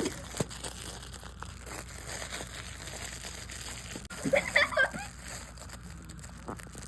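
Crinkling, rustling and small clicks as a mini piglet roots and plays with her toys, with a short vocal sound about four and a half seconds in.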